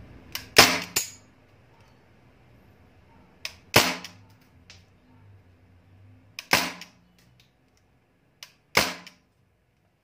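Crosman Bushmaster MPW CO2 BB rifle fired semi-auto, four single shots about two to three seconds apart. Each shot is a sharp pop with a smaller click just before it.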